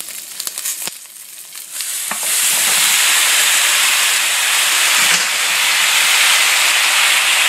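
Sausage slices crackling lightly in hot oil, with a few clicks. About two seconds in, a loud, steady hissing sizzle starts as rinsed, still-wet kale goes into the hot oil and gives off steam.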